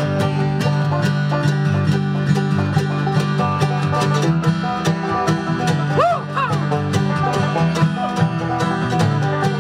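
Bluegrass string band playing: banjo, mandolin and acoustic guitar picking over a walking upright bass.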